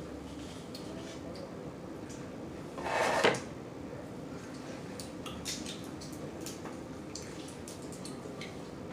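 Blue crab shells being cracked and picked apart by hand while eating: scattered small clicks and wet smacking, with one louder crunching burst that ends in a sharp snap about three seconds in.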